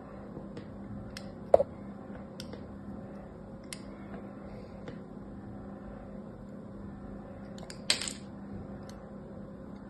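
Craft knife blade scoring a dry bar of soap: a string of light, crisp scratches as the blade draws cut lines, with a sharp louder cut about a second and a half in and a short louder scrape near eight seconds, over a steady low hum.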